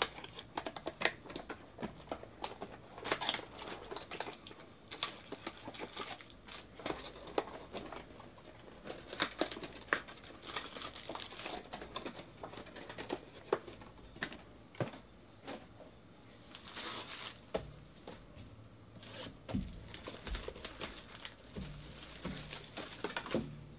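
Plastic shrink wrap and cardboard packaging of a trading-card box crinkling and tearing under the hands, in irregular crackles and small clicks.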